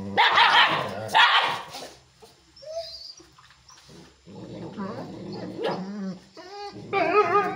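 Chippiparai dogs snarling over a shared food bowl: two loud barks in the first two seconds, a low growl through the middle, and high wavering yelps near the end.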